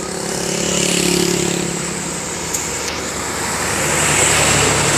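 Large vehicles passing close by on a highway, engine and road noise swelling about a second in and again near the end.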